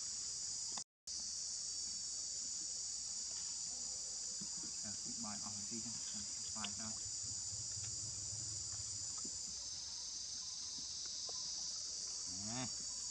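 Steady, high-pitched chorus of insects chirring in the background, broken by a brief dropout about a second in. A few short, squeaky calls rise over it in the middle and near the end.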